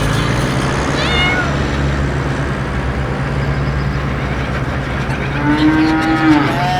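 Animal calls: a short falling cry about a second in and a longer arching cry near the end, over a steady low hum.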